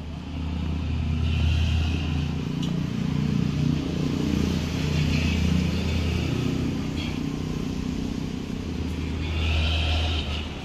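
Heavy truck's diesel engine running, a steady low drone, with a higher hiss swelling three times.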